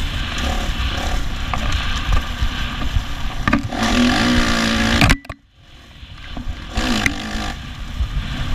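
Kawasaki 450 dirt bike's single-cylinder four-stroke engine revving up and down while riding, heard from a helmet camera with rumble from wind and the ride. A little past halfway the sound cuts out abruptly for about a second, then the engine comes back.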